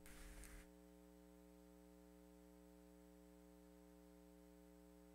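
Near silence: a faint steady electrical hum, after a few faint knocks at the start as a book is lifted from the pulpit, when the room sound drops away suddenly.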